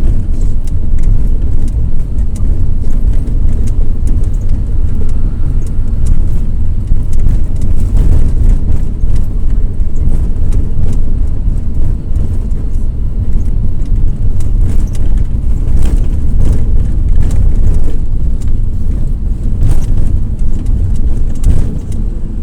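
Inside the cabin of a moving Volare W9C minibus: its Cummins ISF 3.8 four-cylinder turbodiesel runs under load with a deep, steady rumble, mixed with drivetrain and road noise and scattered clicks of body rattle.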